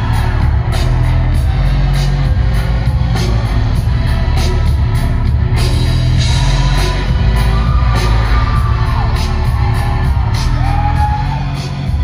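Live rock band playing loud, bass-heavy music with a steady drum beat, recorded from the audience in a concert hall.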